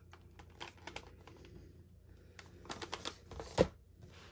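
Soft scattered clicks and taps of packaged scrapbook die-cut and embellishment packs being handled and set down on a table, with a louder tap about three and a half seconds in.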